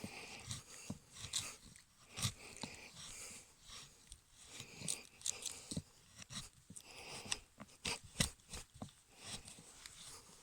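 Knife blade shaving thin curls from a piece of dry split wood to make a feather stick: a run of short, irregular scrapes and small cracks.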